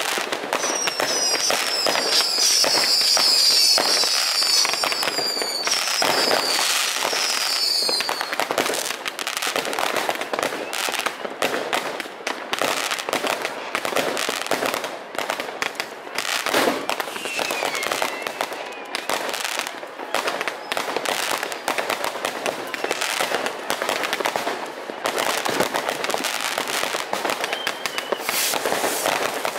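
Fireworks going off close by: a dense, continuous crackle of bangs and pops from rockets and fountains. Several high rocket whistles, each falling slightly in pitch, sound during the first eight seconds, and a couple more come later.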